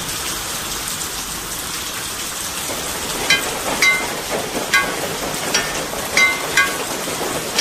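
Steady rain hiss. From about three seconds in it is joined by about six single water drops plinking, each with a short ringing pitch.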